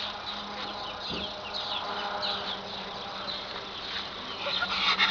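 Small birds chirping in the background: many short, high, falling chirps in quick succession, over a faint steady hum.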